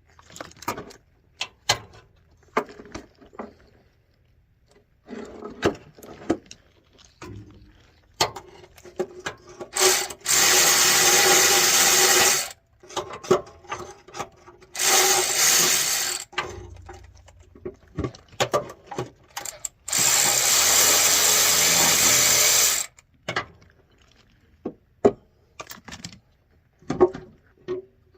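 A handheld power tool runs three times for a few seconds at a steady pitch, with scattered clinks and knocks of hand tools and metal parts between the runs.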